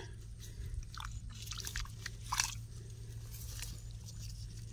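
Rice straw and stubble rustling and crackling as a hand rummages through it in shallow muddy paddy water, in scattered short crackles, the loudest about two and a half seconds in.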